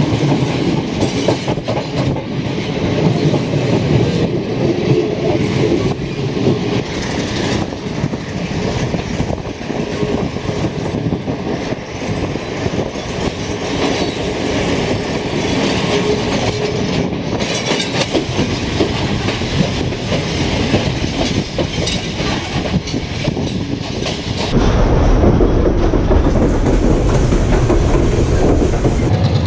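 Sri Lanka Railways passenger train running, its wheels clattering over the rail joints, heard loud through an open carriage window. About three-quarters of the way through, the sound changes to a deeper, steadier rumble inside the carriage.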